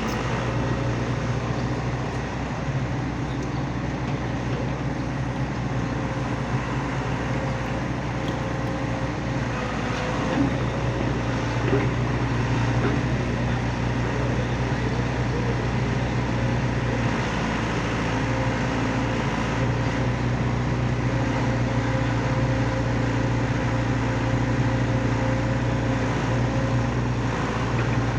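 Excavator's diesel engine running at a steady pitch.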